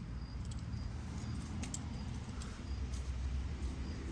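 Small pocket items being handled, with a few light clicks and rattles, over a steady low wind rumble on the microphone.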